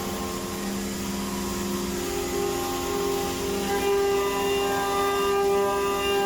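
Milling machine cutting aluminum: a steady pitched whine from the spinning cutter, with a higher set of tones joining in a little past halfway.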